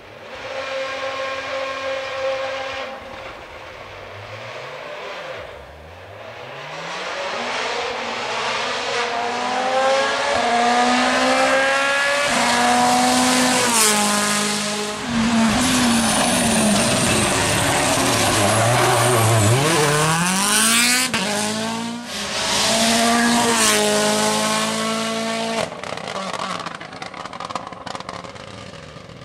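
Hyundai i20 WRC hybrid rally car's 1.6-litre turbocharged four-cylinder engine revving hard on the road. Its pitch climbs through several gear changes and drops away under braking. It is loudest in the middle and fades as the car goes away near the end.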